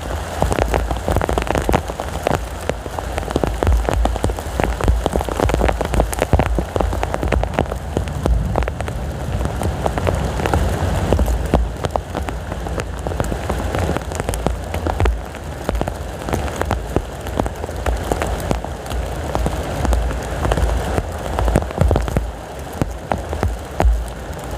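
Heavy rain falling hard: a dense, steady patter of drops over a low, shifting rumble of strong wind.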